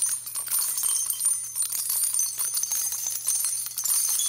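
A jingling, bell-like shimmer sound effect for a title card: a continuous glittering tinkle made of many tiny clicks, with a faint steady hum underneath.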